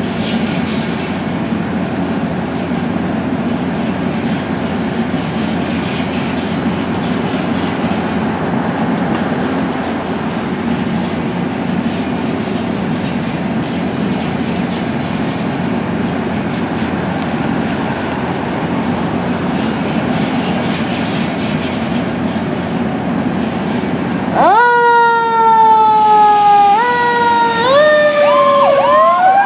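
Fire engine's diesel engine running steadily as the truck pulls out. About 25 seconds in, its electronic siren starts, its pitch sliding and stepping up and down.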